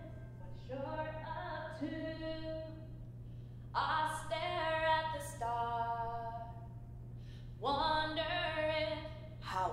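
A woman singing slow, drawn-out phrases with long held notes, three lines with short pauses between them, over a steady low hum.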